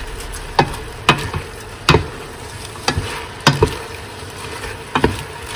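Wooden spoon stirring shrimp and vegetables in a stainless steel pot, with irregular knocks of the spoon against the pot about every half second to second, over a steady sizzle of frying.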